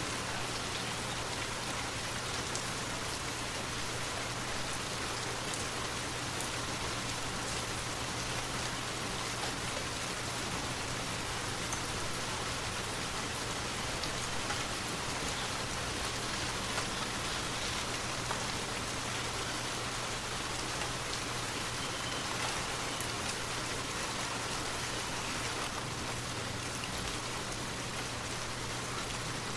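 Forest waterfall: a steady, even rush of falling water.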